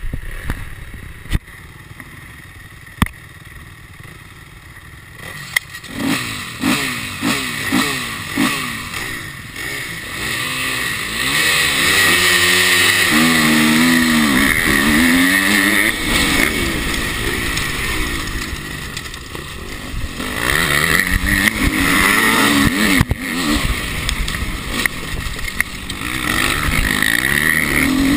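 Four-stroke dirt bike engine revving, its pitch climbing and falling again and again as the throttle is worked, loudest around the middle and near the end. Before it comes in, about six seconds in, there is a quieter stretch with a few sharp clicks.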